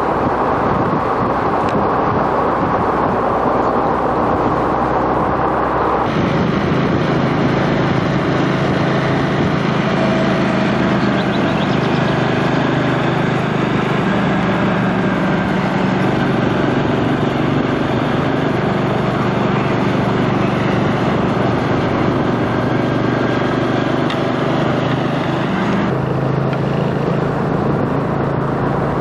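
Motor vehicle engine running steadily at low speed under a noisy rush, heard from the moving vehicle. The sound changes abruptly about six seconds in and again near the end.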